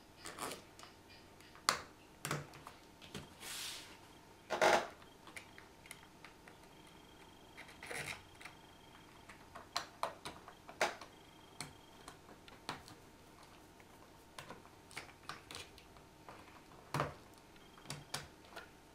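Small metal parts clicking and clinking as precision shims, spacers and V-wheels are handled and slid onto bolts on a gantry plate. Irregular light taps, with a few louder knocks.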